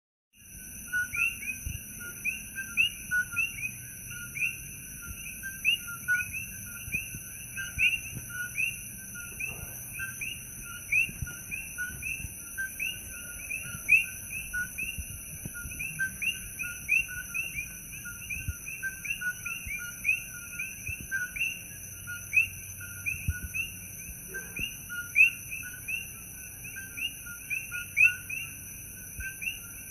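Chorus of coqui frogs calling at night: many overlapping two-note "co-qui" calls, sharp chirps rising in pitch, several a second, going on without a break.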